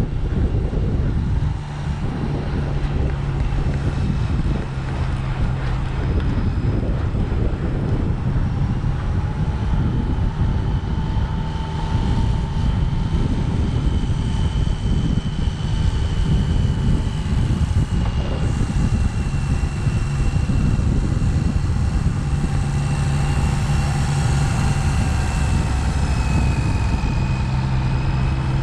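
Steady rush of wind buffeting a moving microphone, with a low steady hum and faint whines that drift slowly in pitch beneath it.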